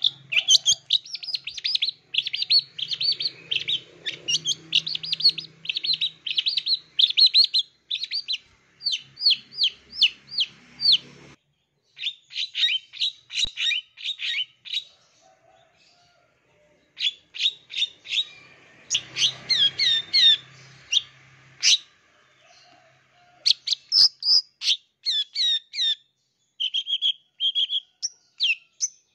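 Long-tailed shrike singing a rapid, varied chattering song of sharp high chirps in fast runs, broken by brief pauses, a song full of mimicked calls of other birds.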